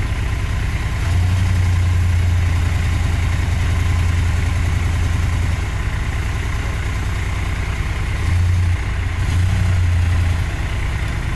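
1966 Dodge Charger's V8 engine running at a low, steady idle as the car is backed off a transport truck, swelling louder for a few seconds twice: about a second in and again near eight seconds in.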